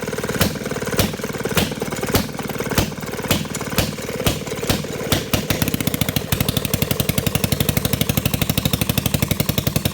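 Antique Maytag washing-machine gas engine running hit-and-miss: loud single firing strokes about half a second apart, coming gradually closer together. About six seconds in it settles into a fast, even run, firing on every stroke.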